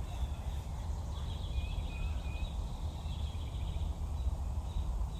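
Steady low background rumble during a pause in speech, with a few faint short high chirps about two seconds in.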